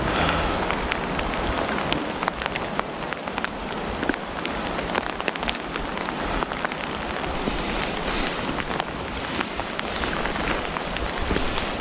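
Steady rain falling through woodland, with frequent sharp ticks of drops landing close by.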